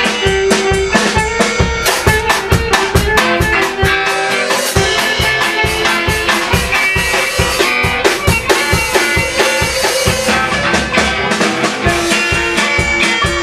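Amateur rock band playing live: a drum kit keeping a steady, driving beat under guitars, with a wash of cymbals through the middle.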